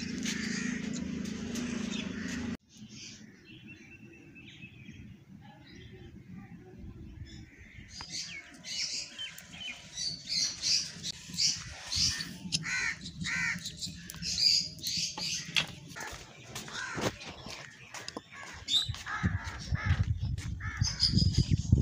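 Crows cawing over and over, the calls coming thick for several seconds in the middle, with a few sharp knocks among them. At the start a steady rushing noise cuts off abruptly.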